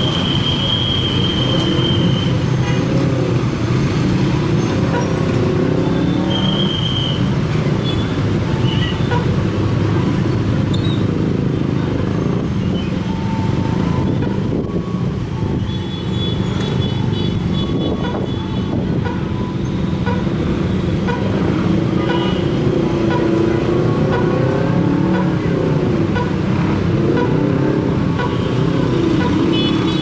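Road traffic at a railway level crossing: motorcycle and truck engines running and pulling away over the tracks. Short horn toots sound in the first two seconds and again briefly about seven seconds in.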